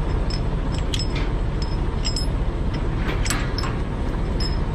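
Steel tie-down chain clinking and rattling as it is handled and pulled across the steel beams on a flatbed trailer: a string of short, sharp metallic clinks, over a steady low rumble.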